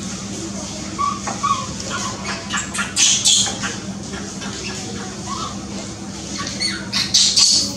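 Baby macaques squealing and squeaking in short, high-pitched calls, louder near the end, over a steady low hum.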